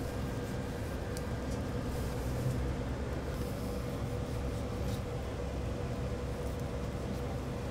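Steady low background hum with a faint steady tone running through it, and a few faint ticks as a boning knife works along the rib bones of a prime rib.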